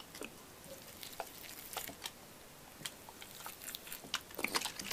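Water from a plastic bottle being poured onto dry vermiculite and soil in plastic cups, giving faint, irregular crackles and ticks as it soaks in.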